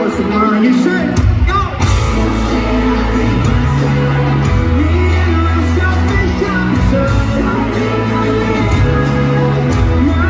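Pop-rock band playing live with lead vocals, electric guitars, bass and drums. The bass and drums come in fully about a second in.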